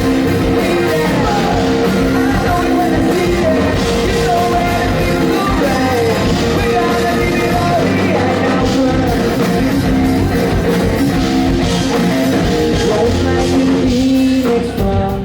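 Rock band playing live at full volume, with drums, bass and electric guitars and a sung or wordless vocal line over them; the music drops back briefly near the end.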